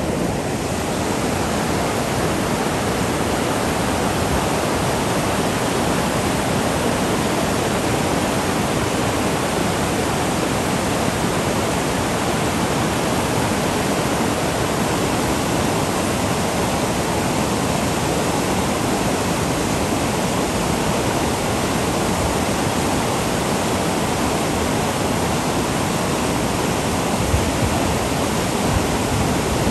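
Whitewater rapids running high over granite rock ledges: a steady, unbroken rush of water.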